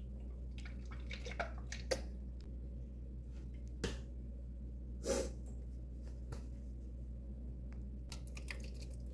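Light clicks and knocks from a non-stick frying pan and spatula being handled, scattered about a second apart with a quick cluster near the end, over a low steady hum.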